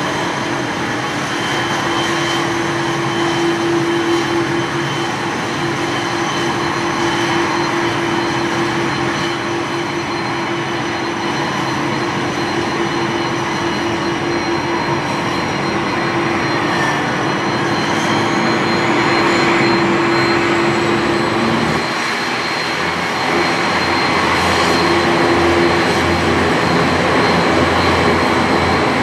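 ATR 72-600 turboprop's Pratt & Whitney PW127 engine running with a steady turbine whine and hum; the high whine rises in pitch about 17 seconds in. A deeper rumble joins about 22 seconds in.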